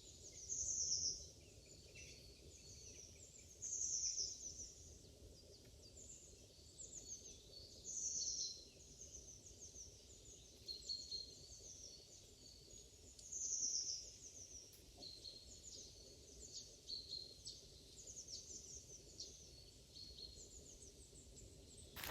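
Songbirds singing and chirping, high-pitched. A louder phrase comes back four times, every four or five seconds, with softer chirps in between.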